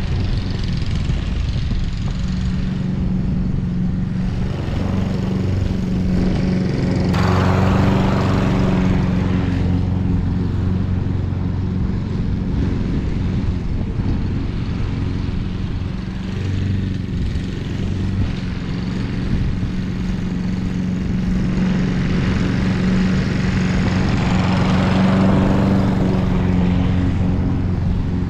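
Hayter Pro 41 petrol rotary lawn mower running steadily while cutting grass, its engine drone growing louder twice as the mower passes close by.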